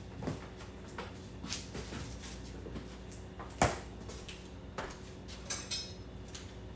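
Clicks, knocks and clinks of a soda bottle being put away in a refrigerator and its door handled. There is a sharp knock about three and a half seconds in, and a brief clinking rattle about five and a half seconds in.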